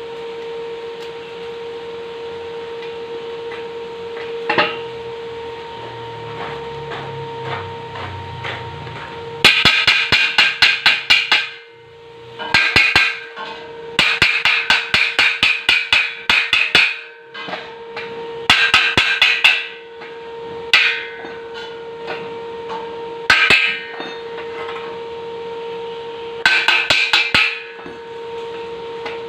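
Welding work on a thin hollow steel tube: bursts of rapid, sharp metallic ticks that come and go several times in the second half, over a steady electrical hum.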